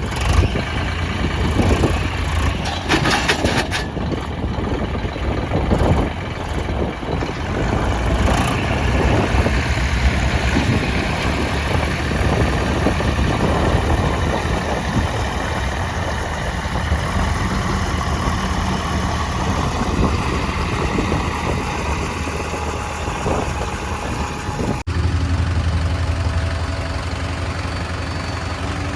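Diesel engines of backhoe loaders and tractors running at a mud-loading site, with a few short knocks. Near the end the sound changes abruptly to a steadier low engine drone.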